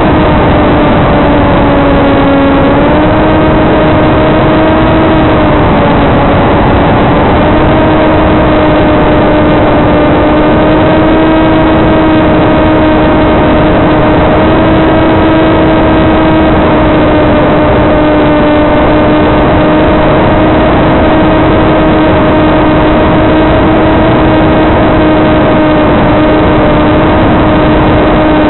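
Electric motor and propeller of a TBS Caipirinha II flying wing running at steady cruise throttle: a loud, steady hum whose pitch dips briefly just before three seconds in, then comes back up.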